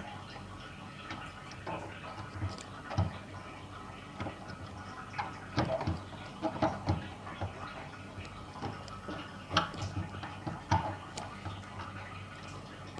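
Scattered light clicks and knocks of the washing machine's plastic drain parts being handled and refitted, some closer together in the middle.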